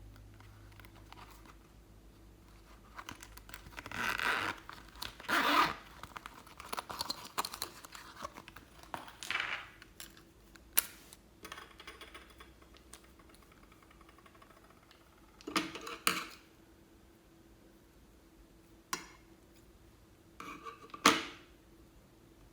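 Slime-making handling noises: scattered sharp clicks and taps, and several short crackly scraping rustles with quiet gaps between them.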